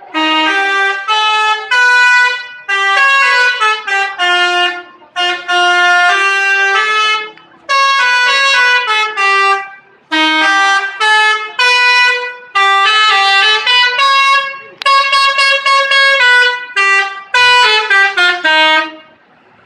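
Bus telolet horn, a multi-trumpet musical air horn, playing short melodic phrases of stepped notes, loud, with brief breaks between phrases.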